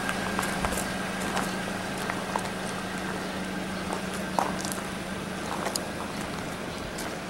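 Footsteps on gravel: scattered light clicks and crunches over a steady low hum.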